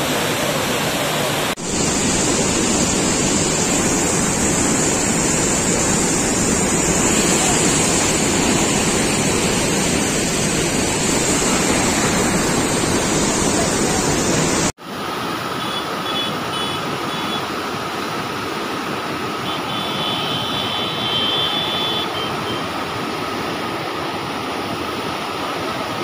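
A river in flood rushing and churning as it pours over and through a bridge: a loud, steady rush of water. About fifteen seconds in the sound cuts to a quieter rush with a steady hum and a few short high tones.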